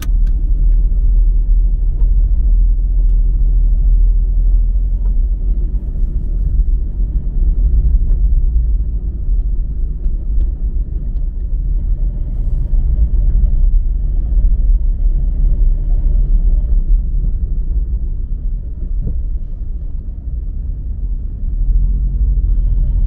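Steady low rumble of car traffic on a city street, with a faint high steady tone through the middle and again near the end.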